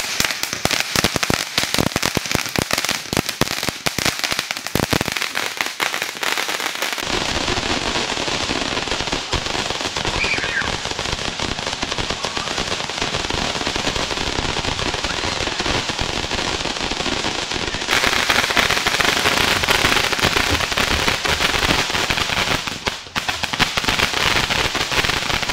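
Handheld spark-shower fireworks ('titanium rain' sparkler swords) burning. They crackle rapidly for the first several seconds, then give a steady hiss of spraying sparks that grows louder about two-thirds of the way through.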